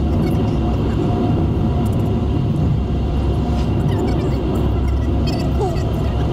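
Steady road noise inside a moving car: the low rumble of the engine and tyres at cruising speed, heard from the cabin.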